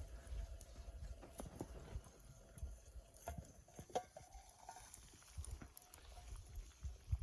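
Small wood fire crackling, with irregular sharp pops over a low, uneven rumble.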